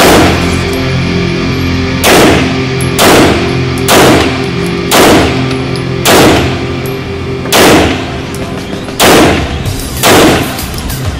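Pistol shots fired one at a time, about nine of them at irregular intervals of roughly one to one and a half seconds, each with an echoing tail. Background music with steady low tones plays under them.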